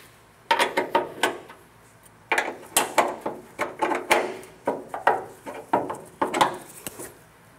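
Clusters of sharp metallic knocks and rattles as a loosened hood hinge on a 1967–72 Chevy truck is bumped upward into a new position. The hood shifts about an eighth of an inch on the hinge.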